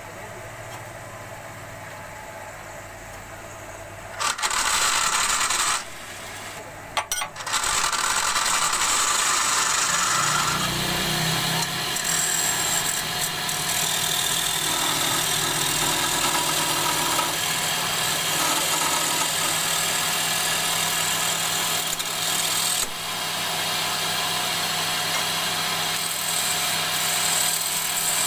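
Wood lathe motor running, with a hand-held turning tool cutting into a spinning wooden hammer handle. The cutting hiss comes in two short bursts about four and seven seconds in, then runs almost without a break from about eight seconds on.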